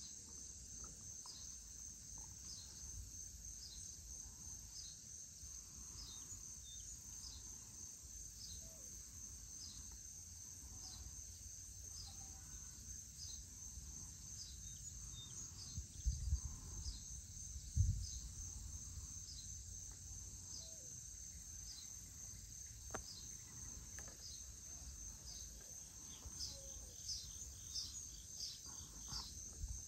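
Evening chorus of insects, likely crickets, as a steady high-pitched trill, with a short high call repeating about once a second. Under it runs a low rumble, with two louder low thumps a little past halfway through.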